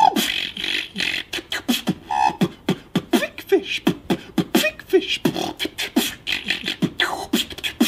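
A man beatboxing: a fast, steady rhythm of mouth-made low kick-drum thumps and sharp clicks.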